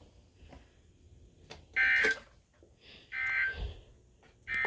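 Phone alert tone beeping three times, about a second and a half apart, each beep about half a second long.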